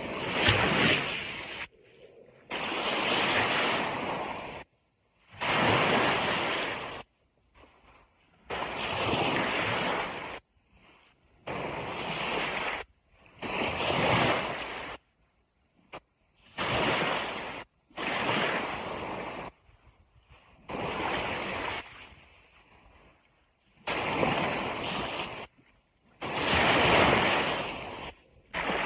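Ocean surf washing on a beach, heard as repeated bursts of rushing noise about every two seconds that cut in and out sharply.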